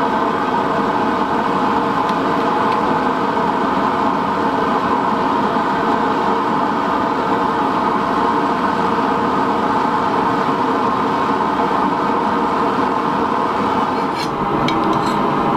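A steady, unchanging drone of several held tones, with a few light clicks near the end.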